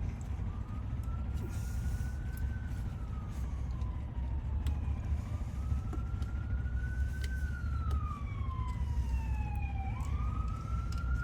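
Emergency vehicle siren wailing, its pitch slowly rising and falling about three times, over a steady low rumble.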